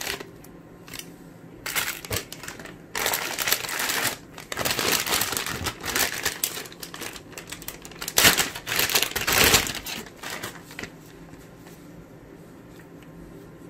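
Clear plastic packaging bag crinkling and rustling in repeated bursts as a chest-strap mount is unwrapped from it. The loudest crinkling comes about eight to nine and a half seconds in, and the last few seconds are quiet.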